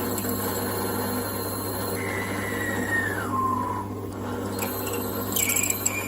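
An electric power tool's motor running with a steady hum. Its whine falls in pitch from about two seconds in, then rises again near the end, where there are a few brief scraping clicks.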